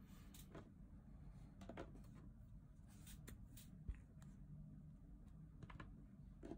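Quiet handling sounds of a plastic water brush pen and a tin watercolour set: scattered faint clicks and light taps, with one sharper low knock about four seconds in.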